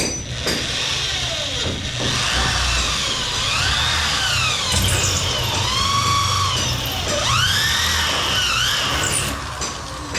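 Power drill running, its whine rising and falling in pitch again and again as the load on the bit changes, with a squeal on top.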